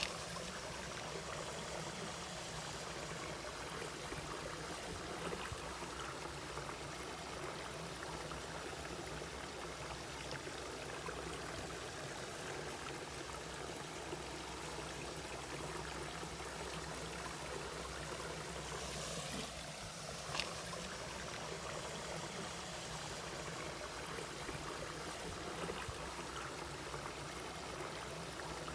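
Mountain valley stream flowing steadily, with one brief click about two-thirds of the way through.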